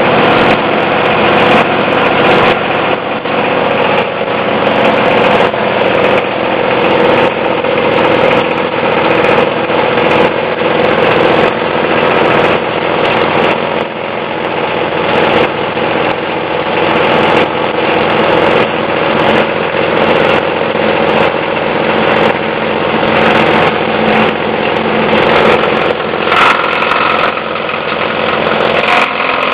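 Plastic shredder running: a loud steady machine drone with frequent irregular sharp cracks, typical of plastic being chopped by the cutting blades.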